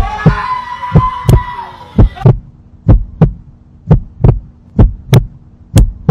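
Heartbeat sound effect: a double lub-dub thump about once a second, over a steady low hum. A held scream runs over the first two seconds and cuts off suddenly.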